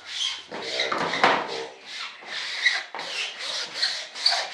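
Gloved hands rubbing and smoothing peel ply fabric down over a resin-wet carbon-fibre layup, a rhythmic run of swishing strokes about two a second, with a short pitched squeak about a second in.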